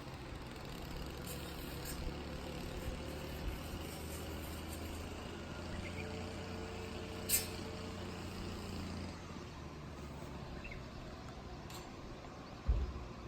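A steady, low engine drone that eases off about nine seconds in, with a sharp click about seven seconds in and two low thumps near the end.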